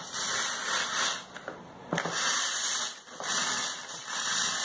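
Mini thermal fogging machine being hand-pumped on its water-cleaning setting, giving a hissing surge with each pump stroke, about four in all, as water is forced through the coil to flush it clean.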